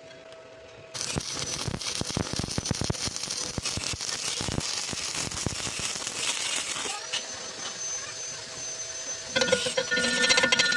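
Electric arc welding: a dense, irregular crackle and spatter that starts abruptly about a second in. Near the end, louder music with held tones comes in over it.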